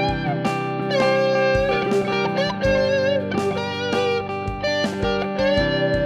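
Electric guitar played through a Twinote BBD Chorus pedal: single lead notes held, bent and wavering in pitch over a steady lower backing part.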